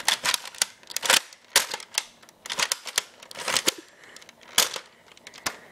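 Sharp plastic clicks and rattles of a Nerf blaster being handled, in quick irregular clusters.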